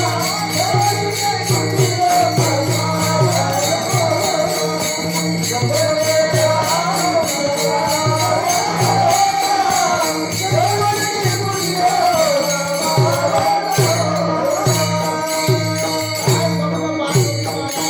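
Devotional kirtan music: a regular drum beat and steadily jingling hand cymbals under a winding melody line.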